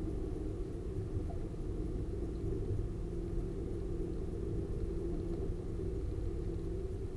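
Diesel railcar running along the track at low speed, heard from inside the driver's cab: a steady low engine drone over the rumble of the wheels.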